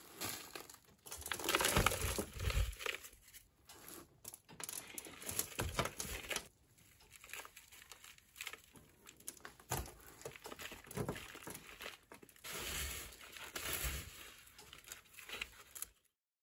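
Gloved hands scooping and dropping potting mix into a thin black plastic nursery pot: irregular rustling and crinkling of soil and plastic, with a few soft thumps.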